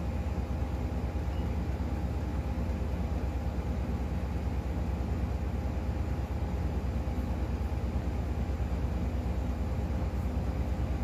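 Steady low mechanical hum with two faint constant tones above it, unchanging throughout.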